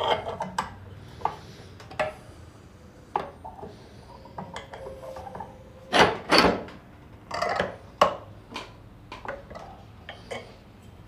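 A 6 mm iron rod being bent in a vise with a pipe slipped over it as a lever: irregular metallic clinks and knocks, the two loudest close together about six seconds in.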